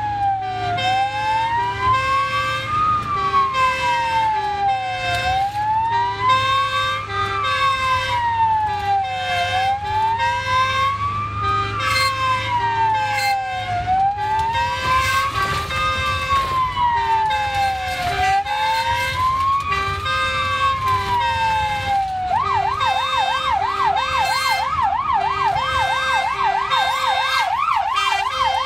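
Ambulance electronic siren heard from inside the cab, wailing in slow rising and falling sweeps of about four seconds each, then switching to a fast yelp about three-quarters of the way through. A short, alternating two-note pattern repeats steadily beneath it, over the vehicle's engine rumble.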